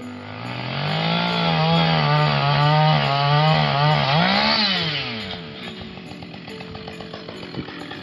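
Two-stroke chainsaw held at high revs, its pitch wavering up and down. About four seconds in it revs up briefly, then drops back to a quieter, steady idle.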